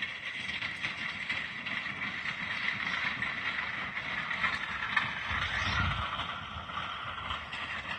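Steel-wheeled wagon rolling away, its metal wheels rattling and grinding steadily over the ground, with a low rumble about five seconds in.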